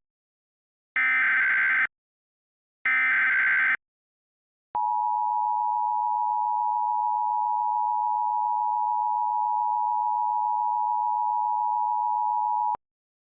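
Emergency Alert System signal: two SAME header data bursts, each about a second long, then the EAS attention tone, a steady tone near 1 kHz held for about eight seconds before cutting off.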